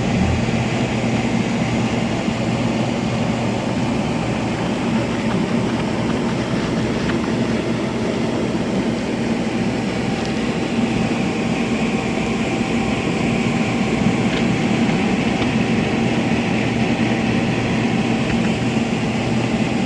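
Steady mechanical drone with a constant low hum, from a running machine or motor.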